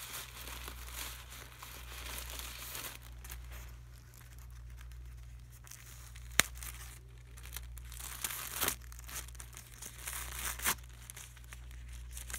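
Plastic packaging of a pack of sanitary pads crinkling and rustling as it is handled and a wrapped pad is pulled out, with a sharp snap about halfway through.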